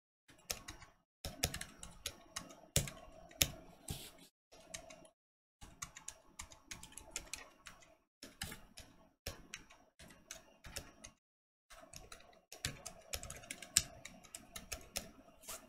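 Typing on a Corne V3.0 split mechanical keyboard fitted with silent linear frankenswitches (Black Boba bottom housings, clear Gazzew tops, Bobagum silent stems, 55 g springs): runs of quick, soft keystrokes in bursts with short pauses, a few strokes standing out louder. The typing cuts off suddenly near the end.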